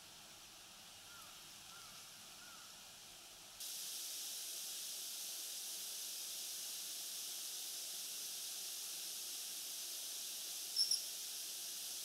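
Common kingfisher giving two short, high-pitched call notes in quick succession near the end, over a steady hiss that starts a few seconds in.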